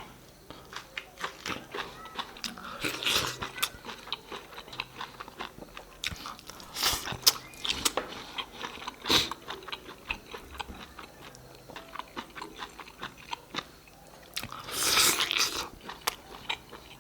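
Close-miked eating: a person chewing and biting food with many small wet mouth clicks, and several louder crunchy bursts about three, seven and fifteen seconds in.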